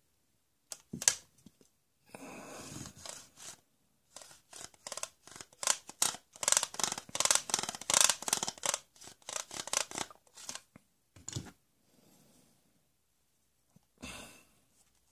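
Toy handsaw's plastic teeth rasping back and forth across a toy plank in quick strokes, with a few knocks of the plastic parts being handled before and after.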